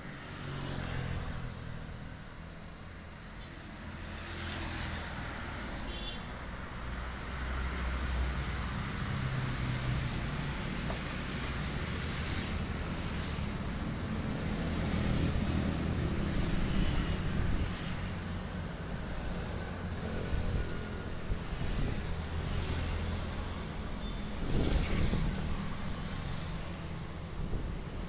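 Street traffic: a continuous mix of engine and tyre noise, with vehicles passing so that it swells and fades several times.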